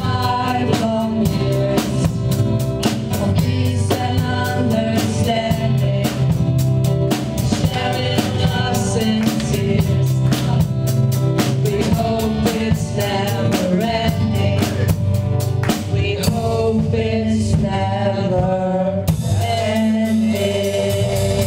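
Live pop-rock band playing a song: two female singers over electric guitar, bass guitar and a drum kit keeping a steady beat. The drums' high hits drop out for about three seconds near the end, then come back.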